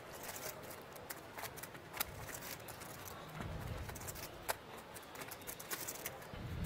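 Faint, scattered clicks of poker chips being handled at the table, over a low room hum.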